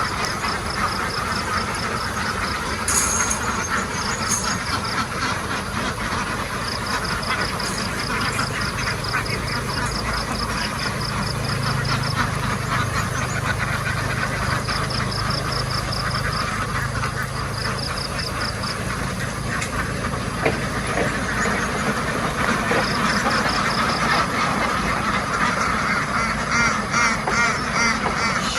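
A large flock of ducks quacking continuously, many calls overlapping. A low steady hum sits underneath through the middle stretch.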